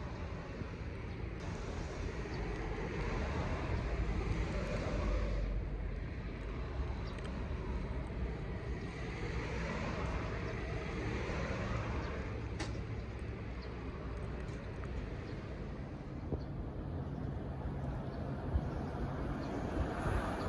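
Road traffic: a steady rumble of road noise, with vehicles passing that swell up a few seconds in and again around ten seconds.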